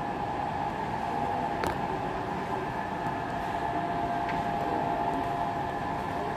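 Steady background hum and hiss with a faint steady tone running through it, and a faint click a couple of times.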